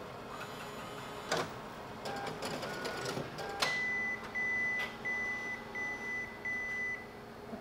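Konica Minolta bizhub C754e colour copier warming up on a reboot, a normal boot after a printer control board swap: a few mechanical clicks and short motor tones, then a high whine broken into stretches about every half second over a low hum.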